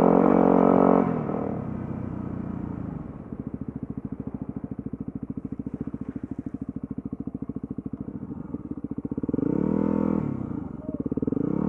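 Yamaha WR250R's single-cylinder four-stroke engine running on throttle, then dropping about a second in to a quieter, evenly pulsing chug as the bike rolls slowly. Near the end the revs briefly rise and fall, twice.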